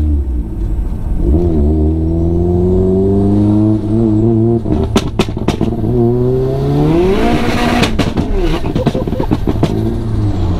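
A turbocharged car engine idling and being revved up and down several times, its anti-lag system letting off a string of sharp pops and bangs in two clusters, around halfway and near the end. The engine settles back to idle just before the end.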